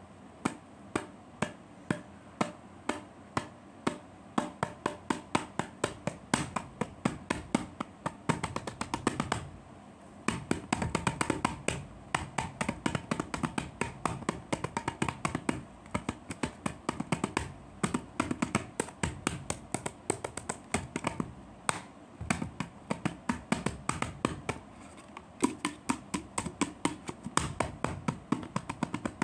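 A single can played with the hand as a drum kit: a steady beat of sharp taps and slaps, several a second, with quicker, denser runs about a third of the way in and again near the end.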